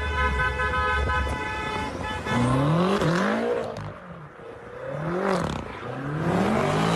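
A car horn sounds one long steady blast that stops about two seconds in. Then a car engine revs up and down several times.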